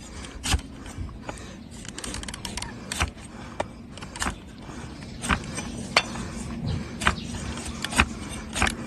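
Farrier's trimming tools cutting into a donkey's dry, overgrown hoof: irregular sharp clicks and knocks of steel on hard horn, about one or two a second.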